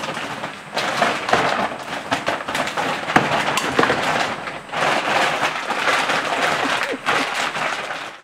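Plastic stockfeed bag crinkling and rustling as it is shaken and crumpled by hand, in two long stretches with a short break about five seconds in.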